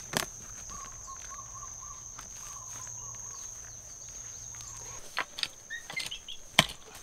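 Steady high-pitched insect trill under soft rustling of crumbly compost and mulch being lifted and let fall by gloved hands. About five seconds in, a few sharp scrapes and knocks as a garden fork digs into the compost, with a couple of short bird chirps.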